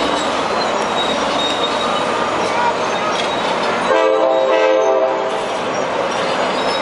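Steady engine noise from tracked side-boom rerailing machines lifting a derailed hopper car. About four seconds in, a horn with several pitches sounds once for a little over a second.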